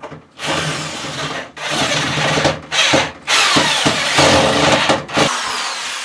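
Cordless drill running in four bursts, driving screws through metal brackets into the panel's wooden frame; the last burst runs about two seconds and stops a little after five seconds in.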